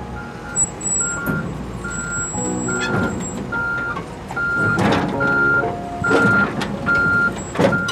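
A heavy vehicle's reversing alarm beeping steadily, just over one beep a second, over a running diesel engine, with a few loud knocks near the middle and the end.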